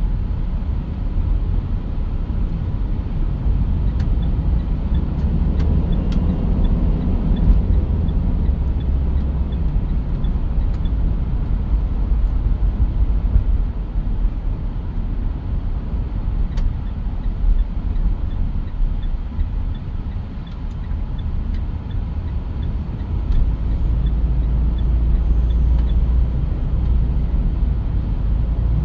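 Mitsubishi Pajero Sport on the move: a steady low rumble of engine and road noise, with a faint regular ticking, about two ticks a second, through most of it.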